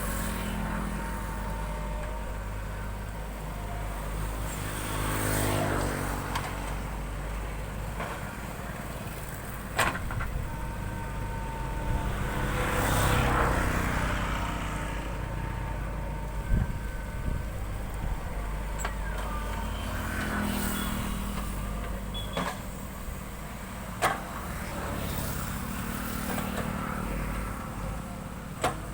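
JCB 3DX backhoe loader's diesel engine running steadily and revving up twice as the hydraulics take load, with several sharp metallic clanks spread through.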